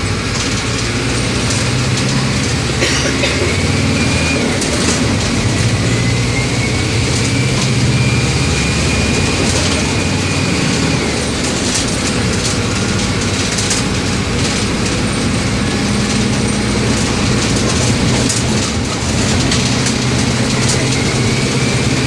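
Mercedes-Benz OM 924 LA four-cylinder inline turbo-diesel of an OF-1722M city bus running, its engine note shifting in pitch as the bus drives. A faint high whine rises slowly, drops away about eleven seconds in and returns near the end, with scattered rattles throughout.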